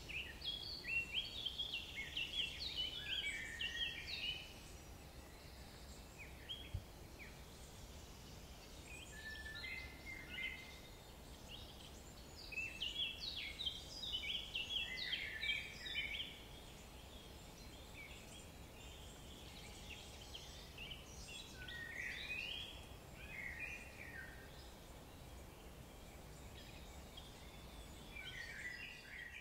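Several bursts of rapid, short high-pitched animal calls, separated by pauses, over a faint low steady rumble.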